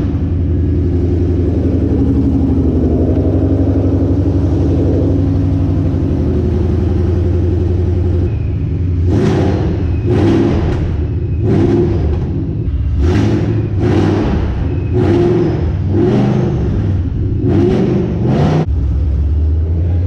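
Supercharged Coyote 5.0 V8 of a Ford Mustang GT running with open headers, having just fired up. It idles loudly for the first several seconds, then from about halfway through it is blipped in a quick series of about ten short revs.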